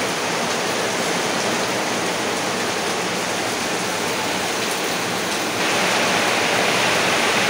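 Heavy rain pouring down as a dense, steady hiss. It grows a little louder and brighter about five and a half seconds in.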